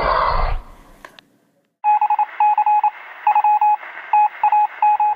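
Touch-tone telephone keypad dialing: a quick run of short two-tone beeps, heard through a narrow, phone-like band. It starts after a loud, noisy sound effect cuts off about half a second in and a brief silence.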